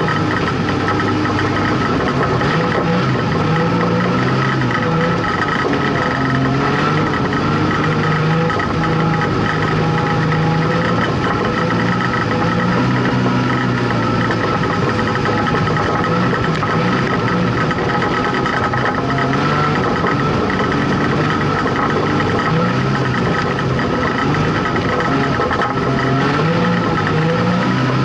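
Street stock race car's engine heard from inside the caged cockpit, running loud and steady, its pitch rising and falling in short swings as the throttle is worked.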